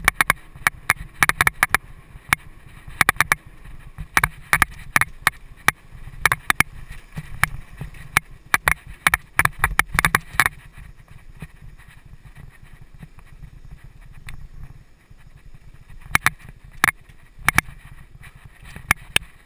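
Mountain bike riding over a bumpy dirt singletrack, heard from a helmet-mounted camera: a steady wind rumble on the microphone with irregular sharp clicks and rattles as the bike and mount jolt over the trail. About halfway through the rattling drops away for several seconds, then returns near the end.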